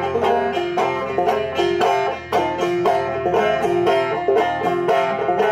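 Five-string banjo played in a quick, even run of plucked notes: the backs of the fingernails strike down, the balls of the fingers come back up, and the thumb returns to the thumb string each time.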